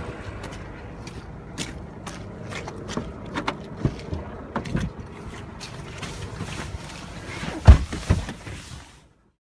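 Footsteps on wet, muddy ground and scattered clicks by a Volkswagen SUV, then two heavy thumps close together near the end as someone gets in and the car door shuts. The sound cuts off suddenly just after.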